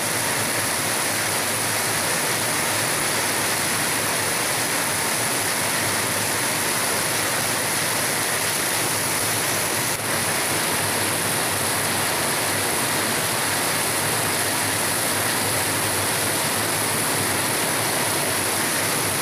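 Heavy cyclone rain pouring down onto a wet street, a dense, steady hiss of the downpour hitting the road.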